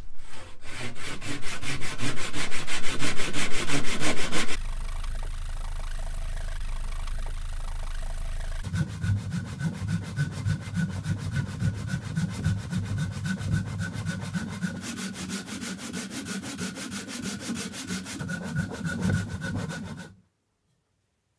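Japanese ryoba pull saw crosscutting a thick mahogany blank by hand, in rapid rhythmic strokes. The sound goes steadier for a few seconds after about four seconds, then the strokes return and stop abruptly near the end.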